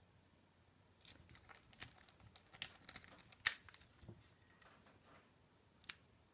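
Rake pick being worked in a Patons padlock's keyway: a quick run of scraping clicks for about three seconds, with one sharp louder click about halfway through and another single click near the end.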